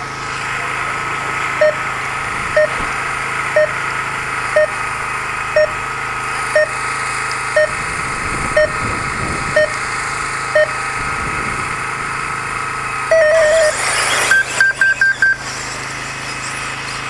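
Electronic start beeps from an RC race timing system: about ten evenly spaced beeps, one a second, counting down the race start, then a longer tone and a quick run of about five higher-pitched beeps as the race gets under way. A steady high-pitched whine and a wash of background noise sit underneath.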